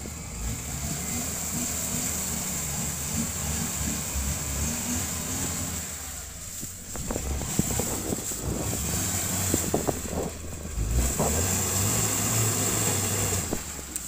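A vehicle engine running under load as a broken-down UAZ Patriot is recovered from a river ford, its drone rising in pitch over the last few seconds. A run of short sharp knocks comes in the middle.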